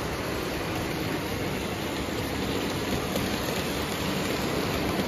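Lionel O-gauge toy steam locomotive and freight cars running on metal three-rail track: a steady rumbling hiss of wheels and motor. It grows a little louder in the second half as the engine passes close by.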